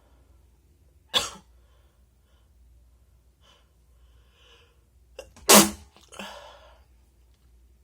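A person sneezing twice in wet, spraying sneezes: a sharp one about a second in, then faint breaths before a louder second sneeze about five and a half seconds in, which trails off in a breathy tail.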